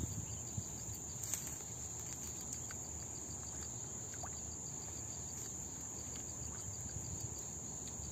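Insects chirring in an unbroken high-pitched drone, faint and steady, with a few small ticks.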